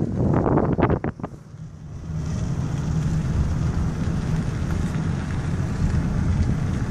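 Wind gusting over the microphone for about the first second, ending in a couple of knocks, then the steady low rumble of a car driving slowly, heard from inside the cabin.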